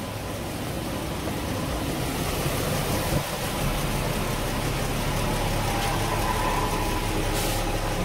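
Toyota Tacoma pickup's engine idling steadily, heard from underneath the truck and growing louder over the first few seconds. A brief knock comes about three seconds in.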